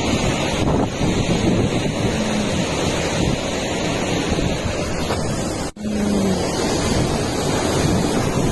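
Cyclone storm: heavy rain and strong wind, with gusts buffeting the microphone in a loud, steady rush. The sound drops out for a split second just after the middle.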